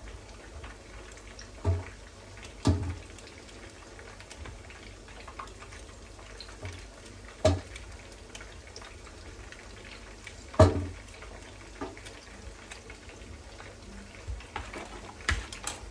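Cooking food giving a soft, steady sizzle in a pan, broken by about half a dozen sharp knocks of a kitchen utensil against the pan. The loudest knock comes about ten seconds in.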